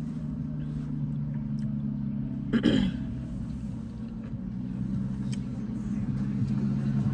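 Steady low hum like an idling engine, with one brief louder sound that drops in pitch about two and a half seconds in.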